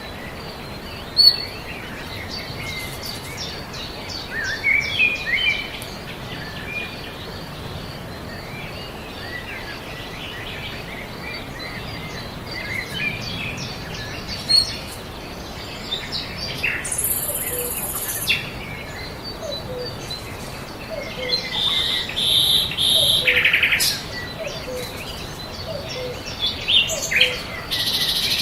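Birds chirping and singing: many short calls and trills over a steady background hiss, with a few louder bursts of calls in the second half.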